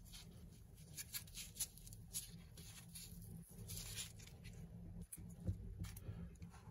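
Faint scrapes and light ticks of fingers handling a small lens-adapter chip on its clear backing and setting it down on a board, over a low steady hum.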